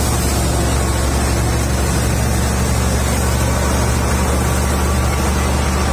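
Tractor-driven Sharif wheat thresher running under load as wheat is fed into it: a loud, steady machine noise with a low drone from the tractor engine and threshing drum.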